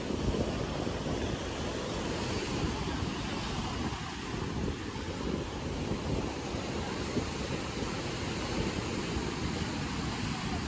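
Rough sea surf breaking and washing over shoreline rocks, a steady rushing wash, with wind buffeting the microphone.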